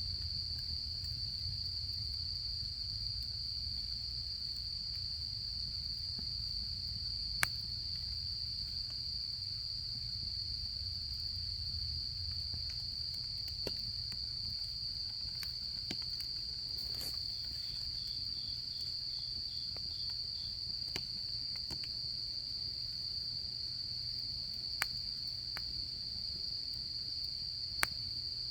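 Autumn insects chirring in one steady high-pitched tone, with a second insect giving a brief pulsed trill about two-thirds of the way through. A wood campfire pops and crackles with a few sharp single snaps, over a low steady rumble.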